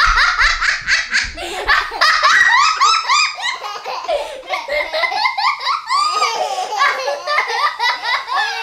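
Hearty, high-pitched human laughter in quick repeated ha-ha pulses.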